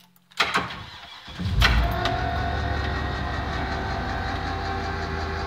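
School bus gasoline engine cranked briefly by the starter, catching about a second and a half in with a surge and settling into a steady, smooth idle. A start after sitting for two days.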